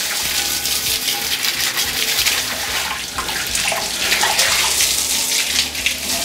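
Garden hose spray nozzle blasting water against the inside of an offset smoker's steel cooking chamber, a steady hiss and splash of spray on metal as the chamber is rinsed out.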